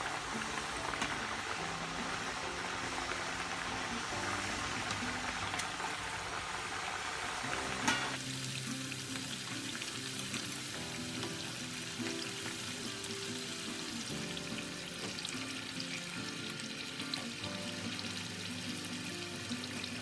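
Rice-flour murukku deep-frying in hot coconut oil, a dense bubbling sizzle. The sizzle is loudest while the freshly added dough spirals bubble hard, then drops abruptly after a sharp click about eight seconds in and continues more softly. Background music with steady held notes plays throughout.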